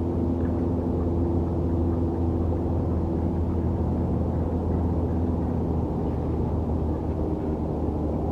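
Steady low rumble of city traffic and engines, with a few steady humming tones in it and no let-up.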